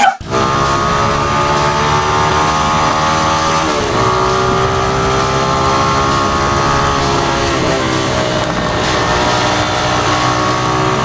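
2018 Motorstar Z200S motorcycle's single-cylinder engine running steadily under way; its pitch breaks and picks up again about four seconds in and once more a few seconds later.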